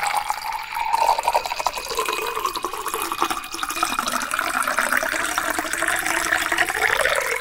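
Liquid splashing and pouring sound effect, a steady rush that swells in over the first second.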